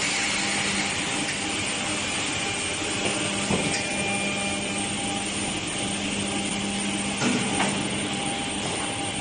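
Woodworking production machinery running with a steady hum and hiss, with a couple of short knocks, about three and a half and seven seconds in.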